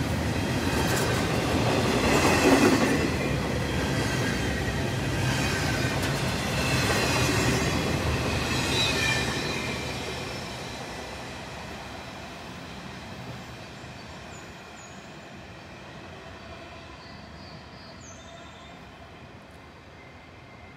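Freight train cars rolling past with wheel squeal over the rumble of the wheels. The sound fades away steadily from about halfway through as the train draws off.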